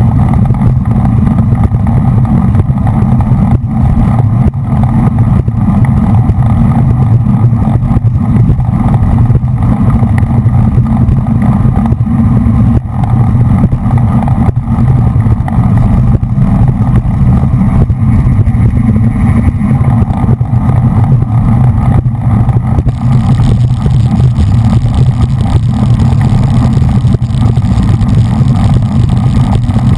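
Loud, steady wind rumble on a bicycle-mounted GoPro's microphone from riding at racing speed.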